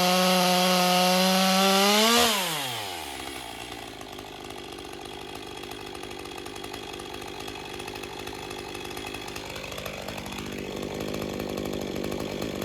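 Stihl MS 201 TC-M two-stroke top-handle chainsaw running at high revs, then the throttle is released about two seconds in and the engine winds down to a steady idle. It is a test run after an M-Tronic component was replaced, and the saw idles smoothly.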